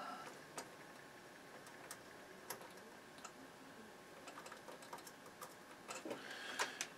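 Faint, scattered light clicks and taps of ESR-meter probe tips being set against capacitor leads on a circuit board, with a few louder clicks near the end.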